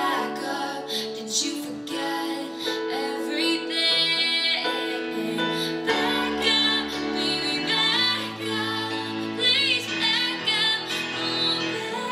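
Recorded music: a song with a woman singing over an instrumental backing.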